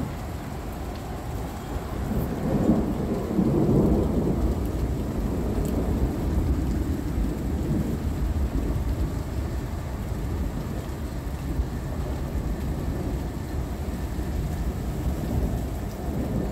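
Rolling thunder that swells about two seconds in, is loudest a second or two later, then rumbles on and slowly eases, over gentle rain.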